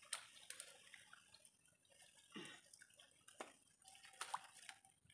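Faint, scattered drips and small splashes of water as hands grope through wet mud and shallow water for clams.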